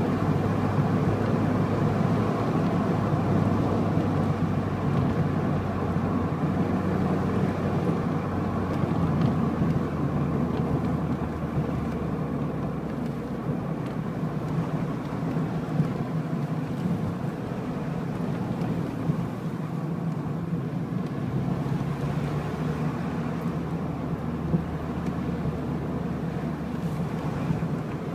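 A road vehicle driving, its engine running at a steady drone with road noise; the engine note wavers a little but never rises or falls sharply.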